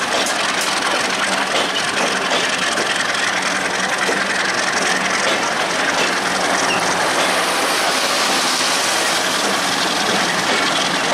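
Passenger coaches of a broad-gauge express train rolling past close by: a steady, loud noise of wheels and bogies running on the rails, with a few sharp clicks in the first second.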